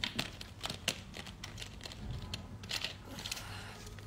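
Scattered light clicks and crinkles of handling noise close to the microphone, irregular and without rhythm.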